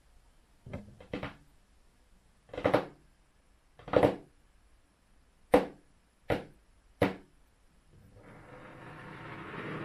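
Fingertips and nails tapping on a textured mat: seven separate sharp taps at uneven spacing. Near the end a rustle starts and grows steadily louder.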